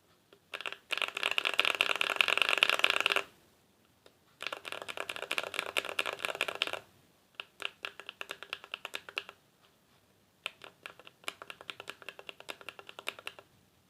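Mechanical keyboard (IDOBAO ID80 with cherry-profile keycaps) with stock budget linear switches being typed on. First come two bursts of fast typing, then two stretches of slower, separate keystrokes.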